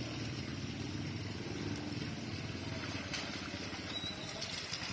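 Small motorcycle engine running steadily as the bike is ridden through thick mud.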